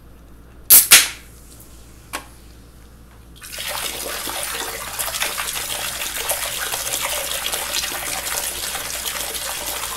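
Tall aluminium can of Liquid Death water cracked open with two sharp snaps of the pull-tab about a second in, and a small click a second later. From about three and a half seconds, water pours steadily from the tipped can and splashes into a kitchen sink.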